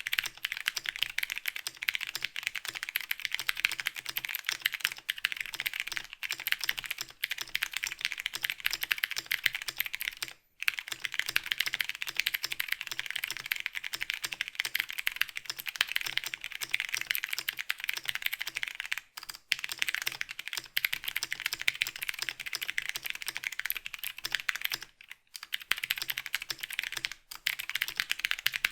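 Continuous typing on a homemade 65% mechanical keyboard with a cardboard case and plate, held together by a tape mount and fitted with stock Cherry MX Brown and Gateron Blue switches. It is a dense, steady clatter of keystrokes, with short pauses about ten, nineteen and twenty-five seconds in.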